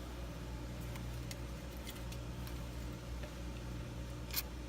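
Low steady hum from the Volkswagen Jetta, with faint scattered ticks. Near the end comes a short hiss of aerosol electrical cleaner being sprayed into the turn-signal stalk to quiet a faulty blinker.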